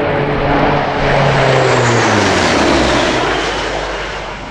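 Lockheed AP-3C Orion's four Allison T56 turboprop engines on a high-speed flyby pass: a loud propeller drone and engine whine that drops in pitch as the aircraft goes by, about two seconds in, then fades away.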